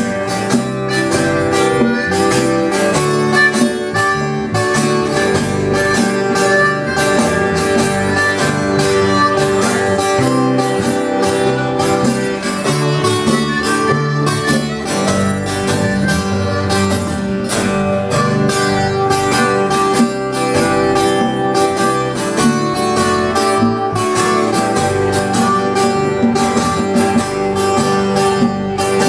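Live band playing an instrumental passage: a harmonica blown into a handheld microphone over strummed guitar.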